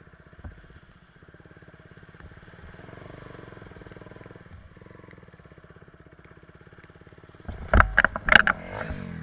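Motorcycle engine running at low speed through shallow muddy water. About seven and a half seconds in, the bike slips and goes down with a burst of loud clattering crashes, and then the engine note drops.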